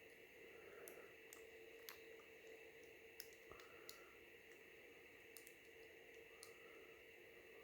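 Near silence over a steady faint hum, with about seven faint, sharp clicks of small repair tools and parts being handled.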